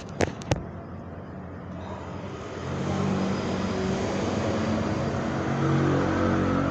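A few sharp clicks at the very start, then a motor vehicle's engine running close by, building up about two seconds in and holding steady and loud.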